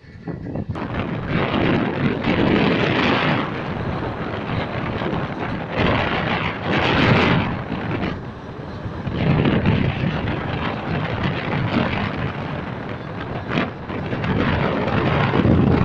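Wind rushing over the microphone together with the running noise of a moving passenger train, heard from an open coach door or window. It rises and falls in gusts every few seconds.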